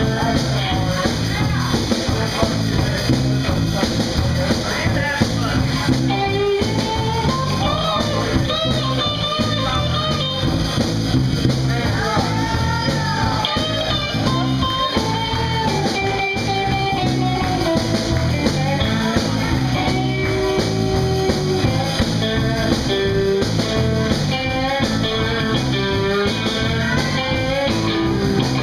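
Live band music led by an electric guitar, with a repeating bass line underneath.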